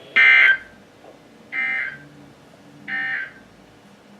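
Three short bursts of NOAA Weather Radio SAME digital data tones, each under half a second and about 1.3 seconds apart, the first the loudest. This is the End of Message (NNNN) signal that closes an EAS severe thunderstorm warning broadcast.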